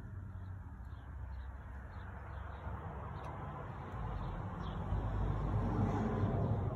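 A small bird chirping repeatedly, short high chirps about twice a second, over a low rumble that gets louder in the second half.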